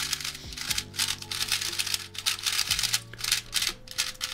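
Rapid, irregular plastic clicking of an MF8 V2 3x3 speed cube being turned by hand, layer after layer, straight out of the box. Background music plays underneath.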